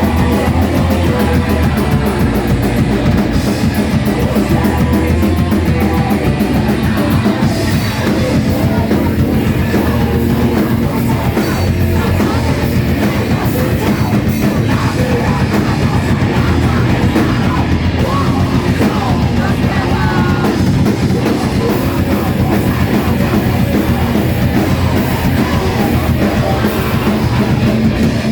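Live rock band playing loud, heavy distorted rock with drum kit and electric guitar, a voice singing at times.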